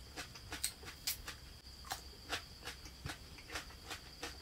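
Close-up crunchy chewing of crisp vegetables: irregular crisp crunches, about two to three a second.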